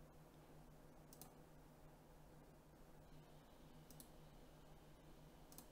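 Near silence with a faint steady hum, broken by three faint double clicks of a computer mouse: about a second in, about four seconds in, and near the end.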